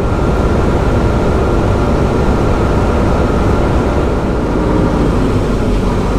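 Semi truck cruising at highway speed, heard inside the cab: a steady low rumble of engine and road noise.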